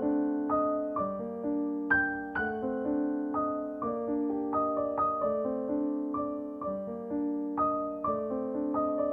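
Soft solo piano background music: a gentle, repeating pattern of single notes and broken chords, each note ringing and fading.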